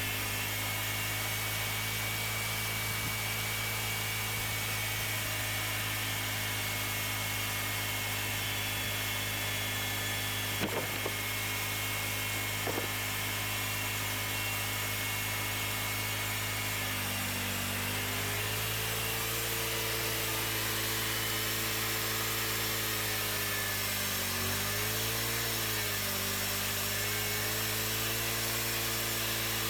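Cook's hydraulic band sawmill running steadily while cutting a cherry log into slabs. A thin high whine drops out a little past halfway as the engine note shifts, and the note wavers briefly a few seconds later. Two light knocks come near the middle.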